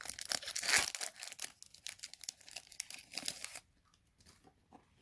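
Trading card pack wrapper being torn open and crinkled, a dense crackling that stops about three and a half seconds in.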